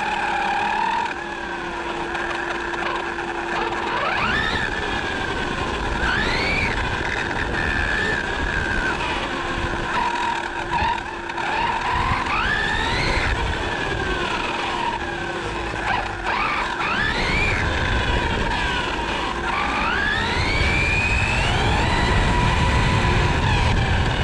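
Electric motor of a 1/8-scale RC truggy whining up and down in pitch with repeated bursts of throttle, over tyre and road rumble that grows in the last few seconds.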